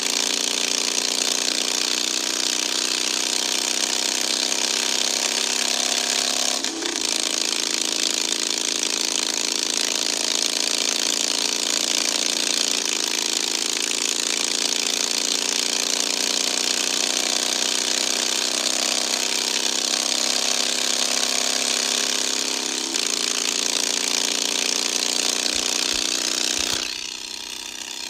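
Motorcycle engine running steadily at highway speed, heard from on the bike with heavy wind rush over the microphone. The engine note shifts abruptly a few times, and the sound drops away near the end.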